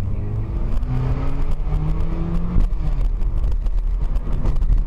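Car engine accelerating, its note rising in pitch in steps until it falls away about two and a half seconds in, over a steady rumble of tyres with repeated knocks and bumps from a rough road surface.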